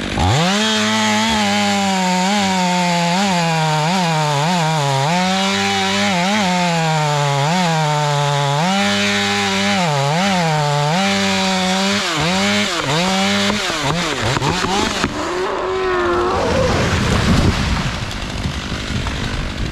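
Stihl MS 500i chainsaw running at high revs, its pitch dipping and recovering again and again as it works through dead oak. Past the middle the engine note drops away, and a loud rough, rushing noise follows near the end.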